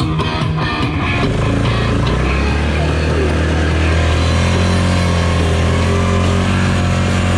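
Yamaha ATV's single-cylinder four-stroke engine pulling away and running steadily, its pitch rising as the quad picks up speed about two to three seconds in. Guitar music fades out in the first second.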